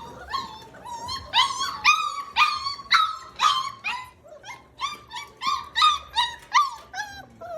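A litter of 5-week-old puppies whining and yelping, many short high-pitched cries overlapping at several a second, some rising and then falling. The puppies are frustrated at being kept from their food by a barrier they must climb.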